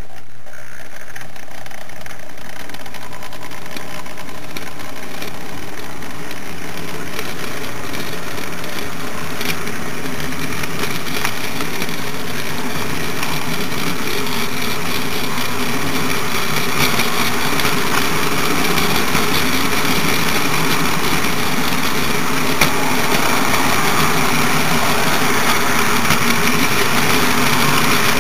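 HO-scale model train running on its layout, heard up close from a car on the moving train: a steady mechanical whir of the locomotive's motor and wheels on the rails. It grows slightly louder over time, with one sharp click about three quarters of the way through.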